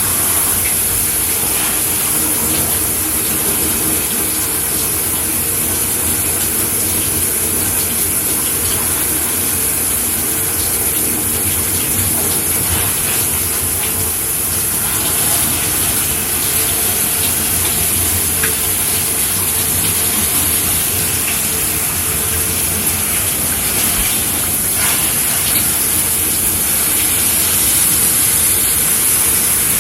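Shower head running steadily, a constant hiss of water spraying and splashing.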